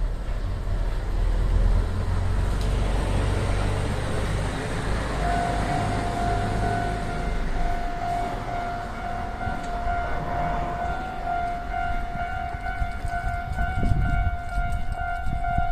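Railway level-crossing warning alarm sounding: a steady electronic ringing tone starts about five seconds in and keeps going, with a low rumble before it.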